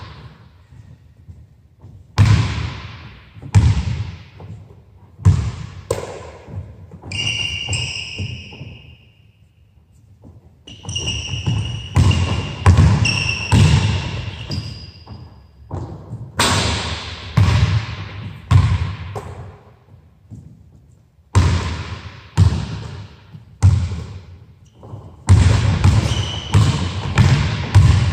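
Basketball bouncing on a hardwood gym floor, dribbled in irregular runs, each bounce echoing in the hall. Sneakers squeak sharply on the floor several times during cuts.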